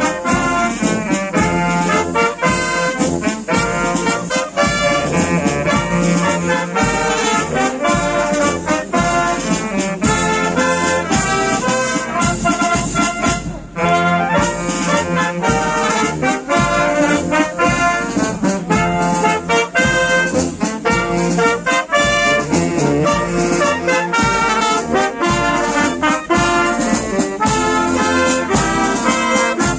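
Wind band playing a tune: trumpets, trombones, saxophones, clarinets and a tuba together over snare and bass drum.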